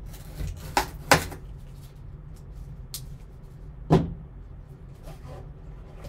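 Cardboard trading-card box being handled as its seals are slit with a cutting tool and the lid is worked free: a few sharp taps and knocks, the loudest about a second in and about four seconds in.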